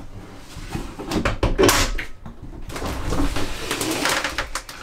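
Wooden camper door being shut and its upper panel swung down, a run of knocks, rattles and scrapes, loudest about one and a half seconds in.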